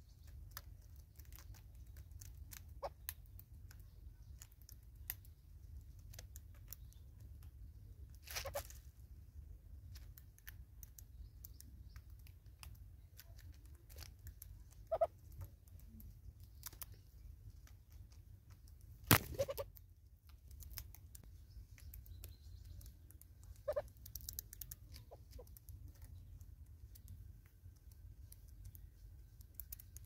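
Southern red-billed hornbills pecking seed off a wooden stump and a feeder pot: scattered light taps and clicks, with a few louder knocks, the loudest about two-thirds of the way through, over a low steady rumble.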